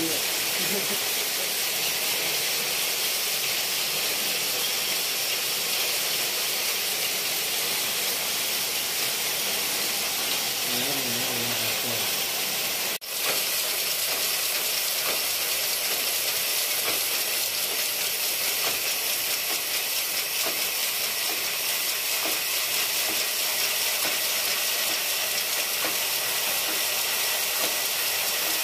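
Circular sock-knitting machine running at speed: a steady, high-pitched mechanical hiss that cuts out for a moment about halfway through.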